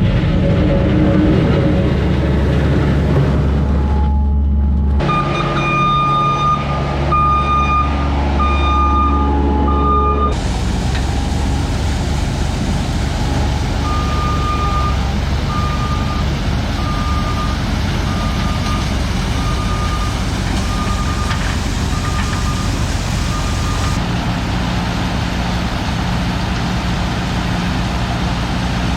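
Skid steer's diesel engine running with its backup alarm beeping about once a second as it reverses, in two stretches, the first about five seconds in and the second through the middle.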